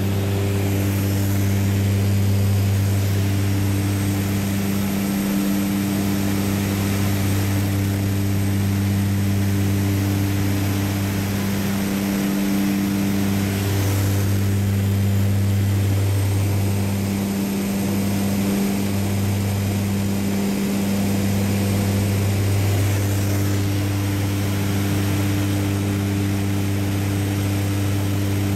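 Steady drone of a propeller aircraft's engine heard from inside the cabin: a low hum with a rush of air over it, dipping briefly a few times.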